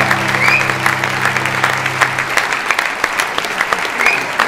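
Live audience applauding, with dense clapping and a couple of short whoops. A held chord from the band rings under the clapping and stops about two seconds in.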